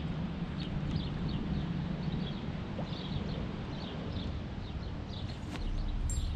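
Steady wind rumble on the microphone, with a running series of faint, light, irregular ticks over it.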